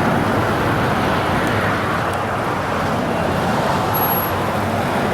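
Steady road traffic noise: a continuous hum of car engines and tyres.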